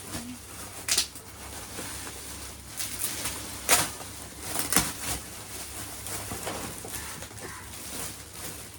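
Gift packaging being handled and opened: low rustling with a few sharp crinkles, about one second in, near four seconds and near five seconds.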